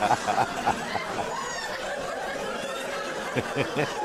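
A man laughing into a close microphone: trailing chuckles that fade over the first second, then a few more short laughs about three and a half seconds in.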